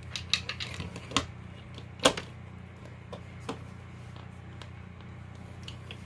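Plastic smoke-alarm mounting base clicking and tapping against the electrical box as it is slid into place, several sharp clicks in the first two seconds, the loudest about two seconds in, then a few fainter taps over a steady low hum.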